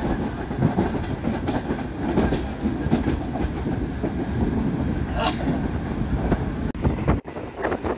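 Green Line Express passenger train running at speed, heard from inside the coach: a steady rumble of wheels on the rails with a continuous irregular clatter. A brief higher note rises out of it about five seconds in.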